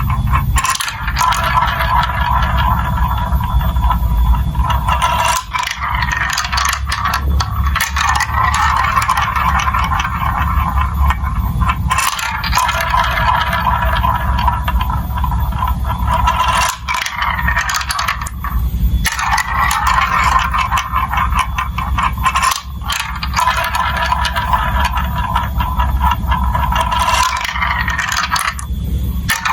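Marbles rolling and clattering through a plastic building-block marble run, a steady rattle full of small clicks with a few brief dips.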